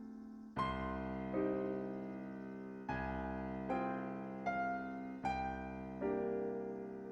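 Slow, calm piano music: soft chords struck about once a second, each left to ring and fade before the next.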